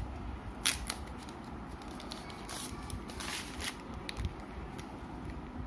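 Thin plastic phone sleeve rustling and crinkling as a new smartphone is slid out of it by hand, in a few short rustles about a second in and again around the middle, with small handling clicks later.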